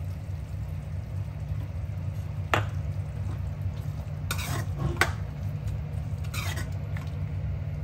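Spoon stirring and scraping chicken in a cooking pot: a few short scrapes and clinks over a steady low hum.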